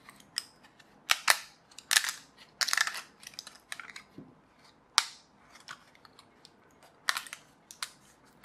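Sharp snaps and cracks of 3D-printed PLA support material being broken off a printed part by hand. About a dozen irregular snaps, with quieter crackling between them.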